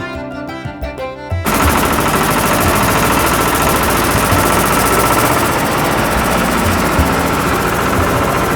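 Background music for about a second and a half, then an abrupt cut to loud road-construction machinery running with a fast, continuous rattle.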